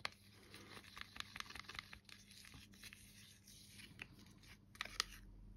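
Faint scraping and clicking of a stirring stick working pink acrylic pouring paint in a clear plastic cup, with a louder cluster of clicks near the end.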